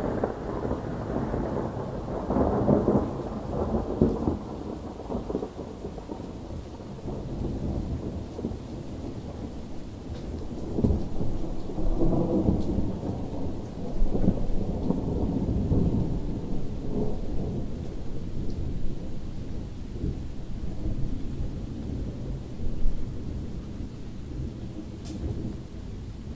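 Thunder rumbling in long rolls that swell and fade several times, loudest in the first few seconds and again around the middle, with rain falling throughout.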